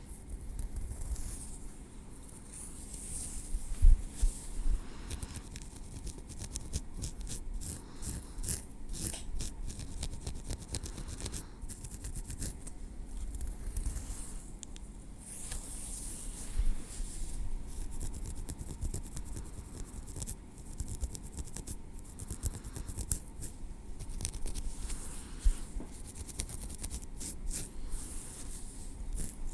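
Metal tweezers working through hair and over the scalp: a run of small clicks and soft scratching, with a louder low bump about four seconds in.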